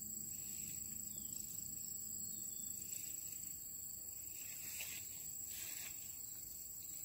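Steady, high-pitched drone of insects singing in the surrounding vegetation, over soft outdoor background noise.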